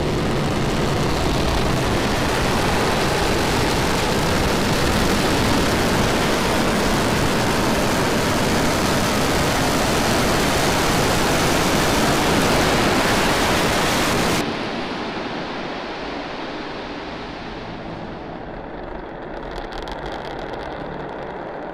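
Starship SN10's Raptor rocket engines firing in the landing burn: a loud, steady roar that cuts off suddenly about 14 seconds in, leaving a quieter rumble as the vehicle settles on the pad.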